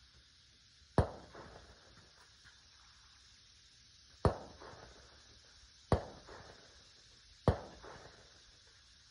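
Four gunshots, each a sharp crack with a short echo trailing off. The first comes about a second in, then three more follow at about one-and-a-half to three-second intervals.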